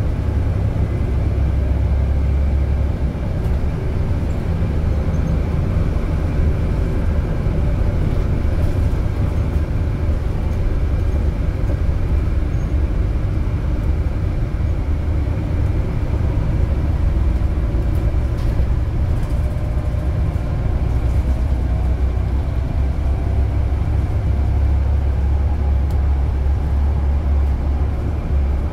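A car driving: a steady low rumble of engine and road noise that holds even throughout.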